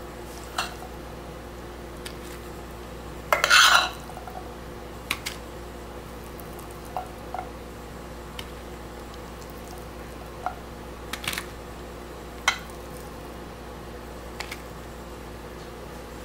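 A metal spoon scraping and tapping against a copper-coloured nonstick frying pan while scooping out shredded chicken and black beans. It makes scattered short clinks, with one longer, louder scrape about three and a half seconds in.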